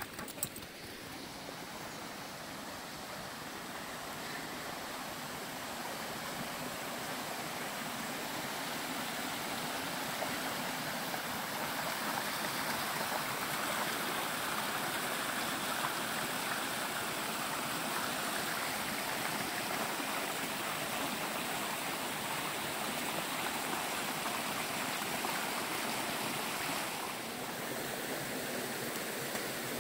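Shallow woodland stream rushing over a small waterfall, a steady even rush. It grows louder over the first half and eases a little near the end.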